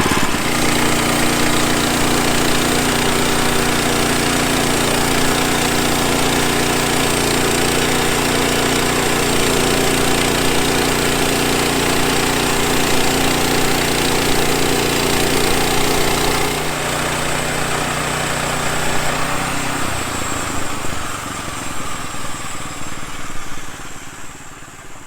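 A mid-sized engine running steadily. Its tone changes about two-thirds of the way through, and it fades away near the end.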